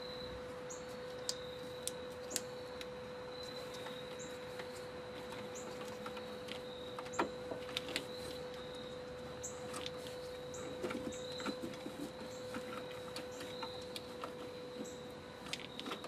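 Scattered faint clicks and light knocks of hands working among the wiring in a truck's engine bay, over a steady hum, with short high bird chirps now and then.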